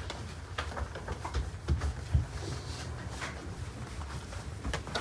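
Soft, scattered taps and knocks of samsa dough being folded by hand on a wooden worktable, the sharpest a little past two seconds in, over a steady low hum.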